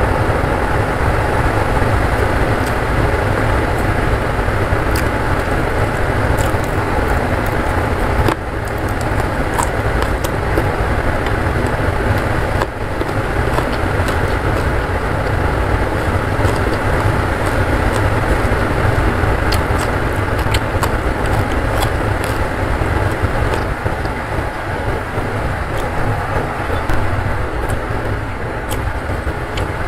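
Close-up eating sounds, with chewing, crunching and mouth clicks of rice and fried fish eaten by hand. Under them runs a loud, steady rumble and hiss that drowns much of the detail.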